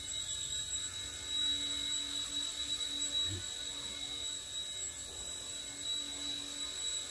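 XK K127 micro RC helicopter hovering in altitude hold: the steady high-pitched whine of its small coreless main and tail motors and spinning rotors.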